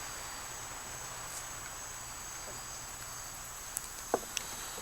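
Steady, high-pitched chorus of insects, with a couple of short knocks about four seconds in.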